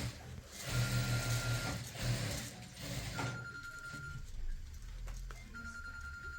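A telephone ringing tone: a steady high beep about a second long, repeating every two to three seconds, three times. A louder noisy sound lies under the first two seconds.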